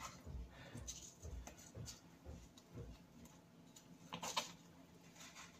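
Knife cutting along a fish's backbone on a plastic chopping board: faint, irregular ticks and scrapes, with a louder tap about four seconds in.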